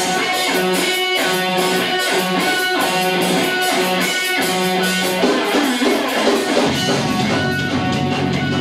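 Live rock band playing: electric guitars pick out a repeating rhythmic riff, and about two-thirds of the way through the sound fills out as a heavy low end comes in.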